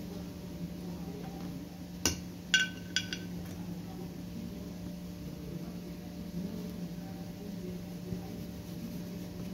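Kitchenware clinking three times in quick succession, sharp ringing knocks about two to three seconds in, over a steady low hum.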